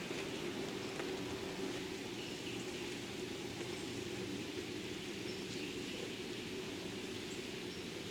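Steady outdoor background noise: an even hiss with a low hum underneath and no distinct events.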